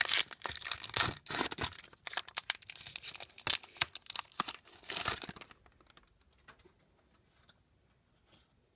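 The foil wrapper of a Pokémon Sun and Moon booster pack being torn open and crinkled by hand: a run of crackling rips that stops about five and a half seconds in.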